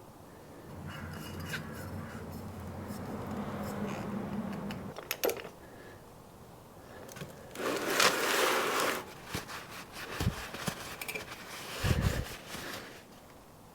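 Workshop handling noises during a motorcycle oil change: scraping and clicking of tools and parts, with a low hum in the first few seconds, a short rushing noise a little past halfway and two dull thumps near the end.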